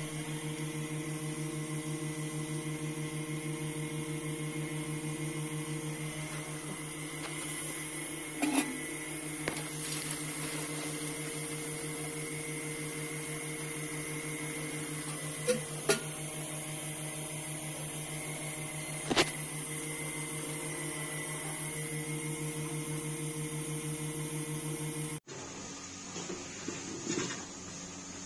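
Steady machine hum from a running motor, with a fast even pulse and a few sharp clicks. It cuts off suddenly near the end, and light clattering follows.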